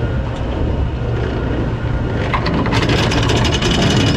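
A fishing head boat's engine running with a steady low rumble. A loud rushing hiss comes in over it about two and a half seconds in.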